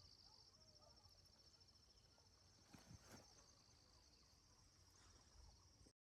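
Faint, steady high-pitched trill of insects, with a couple of faint clicks about three seconds in; the sound cuts off abruptly just before the end.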